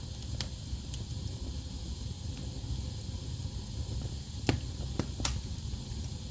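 Wood fire burning in a fireplace: a steady low rumble and hiss of the flames with a few sharp crackles and pops from the logs, the loudest about four and a half seconds in, followed by two more in quick succession.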